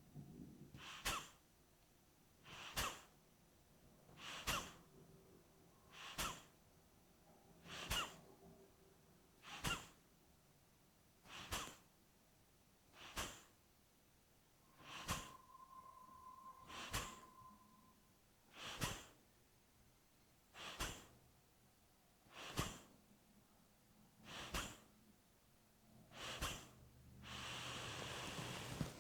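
Kapalbhati breathing at medium speed: short, forceful exhalations through the nose, driven by snaps of the abdomen, repeating evenly about once every two seconds. Near the end comes one longer, drawn-out breath.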